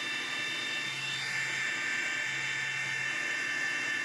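High-speed CNC router spindle running with a steady high whine while cutting the outline of a protoboard (PCB). A lower motor tone from the axis stepper motors starts and stops twice as the machine moves along its path.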